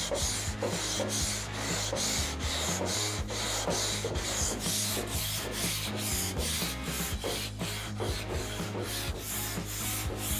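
Long hand sanding board scraping back and forth across a bare-steel 1940 Willys hood in quick even strokes, about two to three a second. It is block-sanding off a marker guide coat to show the remaining highs and lows in the panel.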